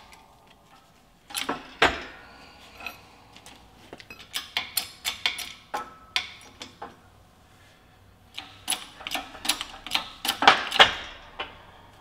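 Scattered metal clicks and knocks from a Harbor Freight hydraulic shop press as its steel press cups and a poly bushing are shifted and recentered and the jack is worked. They come in three loose groups, the loudest near the end.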